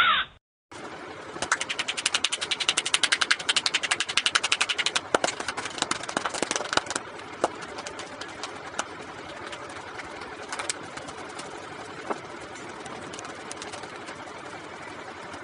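Rapid hand strikes on a man's head in a barber's head massage: a fast run of sharp slaps and chops for several seconds, then slower, scattered taps over a steady background hiss.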